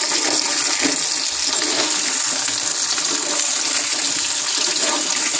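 Brinjal, drumstick, shallot and garlic pieces sizzling steadily in hot oil in an earthenware pot as they are sautéed.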